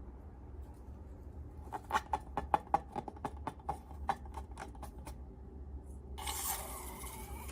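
Slime being worked by hand: a quick run of small sharp clicks and pops, about four a second, then a steady rasping scrape starting about six seconds in.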